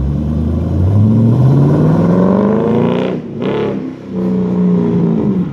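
C5 Corvette's 5.7-litre V8 through BBK mufflers, accelerating hard. The pitch climbs for about three seconds, breaks off briefly as it shifts up, then pulls again at a lower pitch.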